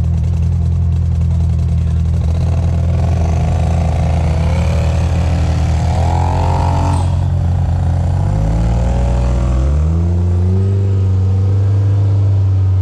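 Polaris RZR side-by-side engine running on the trail, heard from on board: a steady low drone whose note wavers and then climbs in pitch about eight to ten seconds in as the engine revs up.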